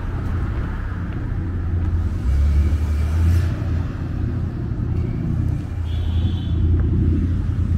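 Street traffic: car engines running and passing with a steady low rumble, swelling about two to three seconds in.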